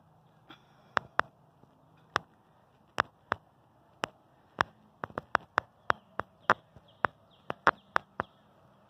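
Footsteps on an asphalt road: sharp slapping steps, a little over two a second and uneven, with faint bird chirps in the background.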